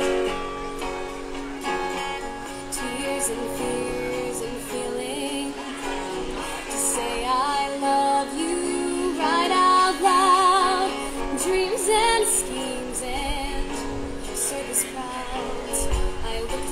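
Live acoustic duo performing: strummed acoustic guitar under a woman's singing voice, held notes sung with vibrato.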